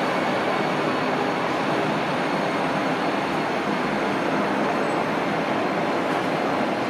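Matterhorn Gotthard Bahn Deh 4/4 electric locomotive hauling a rake of coaches away at low speed. There is a steady rumble of wheels on the rails, with a faint, high, steady whine.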